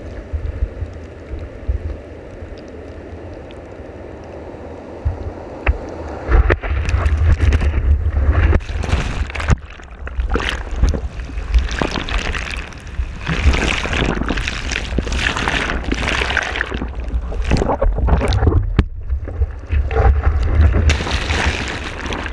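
Seawater rushing and splashing over a camera at surfboard level in the surf, with heavy buffeting rumble on the microphone. The first six seconds or so are a steadier, duller rush; after that come loud, irregular splashes and surges.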